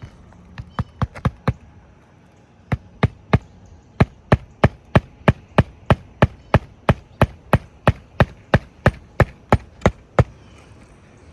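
Hammer driving roofing nails into a shingle: a quick run of about five blows, a short pause, then steady blows about three a second that stop about ten seconds in.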